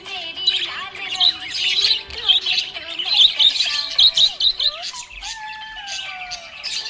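Budgerigars chirping and warbling in a rapid, continuous chatter of overlapping high chirps, with a longer falling note about five seconds in.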